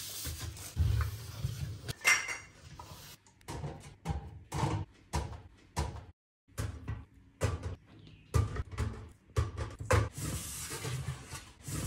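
Tin cans and glass bottles being set down and shifted in a wire-mesh storage basket: a string of short, irregular clinks and knocks.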